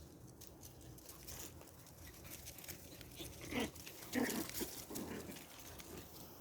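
Pomeranian puppies playing, giving a few short puppy vocal sounds about halfway through, over faint scattered scratching clicks.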